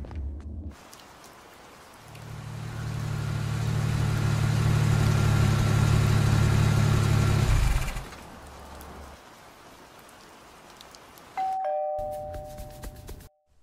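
Rain falling steadily. About two seconds in, a low car engine rumble swells up, holds, and cuts off near eight seconds. Near the end a two-tone doorbell chime rings, a high note then a lower one.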